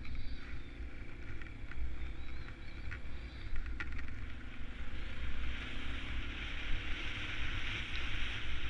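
A vehicle driving along a trail, its engine running with a steady low rumble. A rushing hiss grows louder about halfway through.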